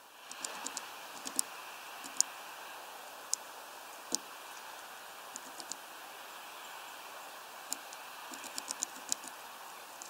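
Great tit at a window feeder: scattered sharp little clicks and taps, single and in quick runs, from its claws and beak on the wooden perch and feeder, with one duller knock about four seconds in. A steady outdoor hiss sits underneath.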